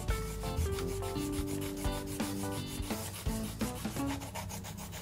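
Coloured pencil shading rapidly back and forth on paper in quick, continuous rubbing strokes.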